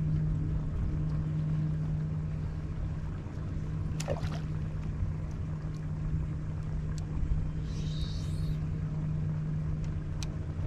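Steady low hum of a bass boat's electric motor, running at one even pitch over a low rumble. A short swish comes about four seconds in and a brief hiss near eight seconds.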